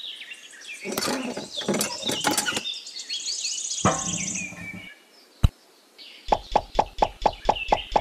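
Birds chirping with a few light clicks, then one sharp click, and from about three-quarters of the way in a fast, even run of sharp knocks, roughly five a second.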